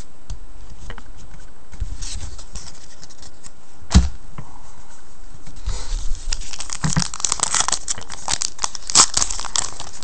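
Foil wrapper of a 2010 Crown Royale football card pack being torn open and crinkled, a dense crackling that starts a little past halfway through and keeps going. Before it, quiet handling with a single sharp knock about four seconds in.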